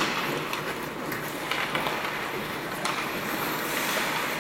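Ice hockey play in an ice rink: a steady hiss of skates scraping and carving the ice, with a few sharp knocks from sticks and puck.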